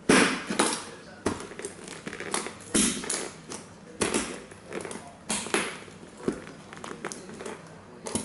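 Cowboy boot heel stamping on and grinding down model toy train cars, breaking them: a series of sharp cracks, crunches and taps, roughly one every half second to second, the loudest at the very start.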